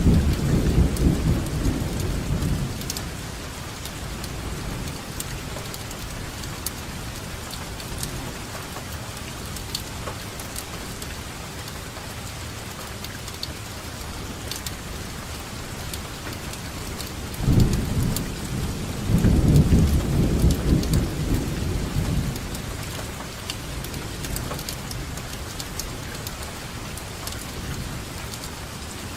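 Steady heavy rainfall hissing, with fine ticks of individual drops. Thunder rumbles low at the start and again for several seconds about two-thirds of the way through.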